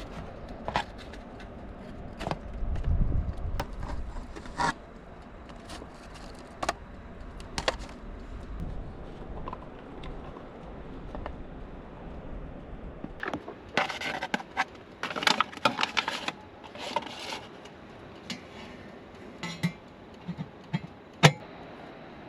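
Cooking utensils clinking and scraping against pans and dishes: scattered single knocks, then a busier run of clatter and scraping past the middle, and one sharp click near the end. A low rumble sits under the first half.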